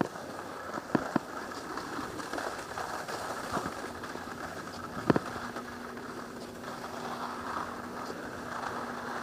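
Edges scraping and chattering down firm, hard-packed snow, a steady rasping rush broken by a few sharp clacks. A low steady hum joins about halfway through.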